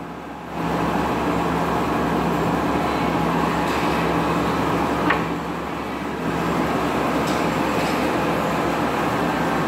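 Steady noise of a machine running, with a constant low hum; it eases briefly about five and a half seconds in, then returns.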